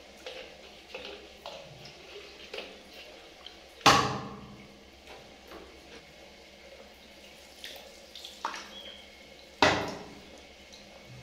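A hand shower head lying in a stainless steel basin sprays water, with small splashes and knocks. Twice, about four seconds in and again near the end, a loud thump rings briefly.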